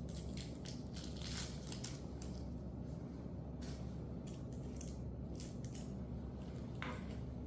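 Light rustling and small ticks as a leather shoulder bag and its adjustable strap are handled, over a steady low hum.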